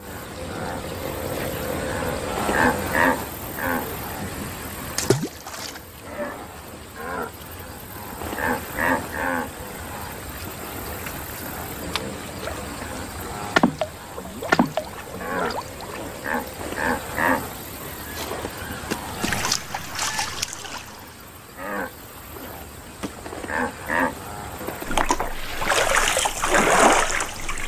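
Cartoon wildebeest vocalizing in short grunting calls that come in clusters every few seconds, with several sharp knocks in between and a burst of rushing noise near the end.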